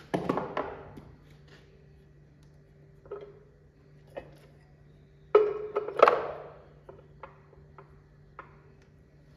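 Steel pieces being handled and set down: a clatter of ringing metal clanks at the start and again about five to six seconds in, with lighter knocks and taps between and near the end, over a steady low hum.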